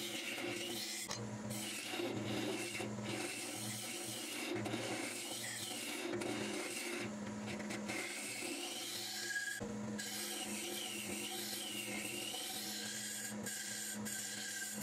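Wood lathe running with a hand-held turning tool scraping and cutting inside the spinning cup of a green arbutus goblet, a steady motor hum under the rasping of the tool on the wood.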